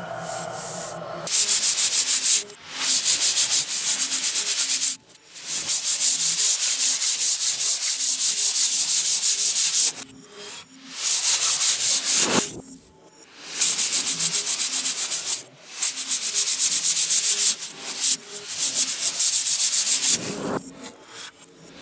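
Plywood being sanded by hand with quick back-and-forth rubbing strokes, starting about a second in and going in spells of a few seconds broken by short pauses.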